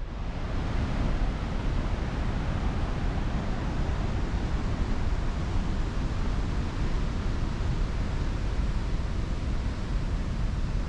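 Trümmelbach Falls, a glacier-fed waterfall running inside the mountain, rushing with a steady, loud roar of water, heaviest in the low end; it swells up in the first second.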